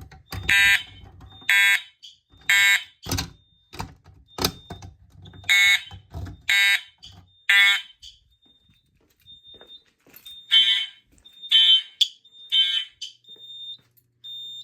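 Fire alarm horn sounding in three groups of three short blasts, each blast about a second apart, with a pause between groups. This is the panel's simple zone coding, signalling an alarm on zone 3.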